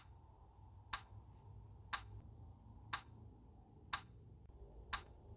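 A clock ticking once a second, six crisp, evenly spaced ticks.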